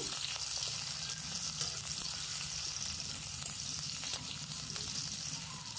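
Sliced onions and bay leaves sizzling steadily in hot oil in a metal kadai, stirred with a metal spatula that scrapes and ticks against the pan now and then.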